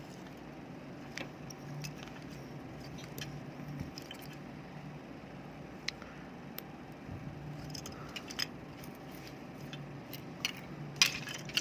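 Small parts of a disassembled rechargeable flashlight being handled, giving scattered light clicks and rattles over a faint steady hum, with a louder cluster of clicks near the end.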